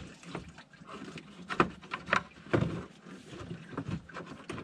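Irregular knocks and clunks of parts being handled while a truck radiator is worked out of the engine bay, the sharpest about one and a half, two and two and a half seconds in.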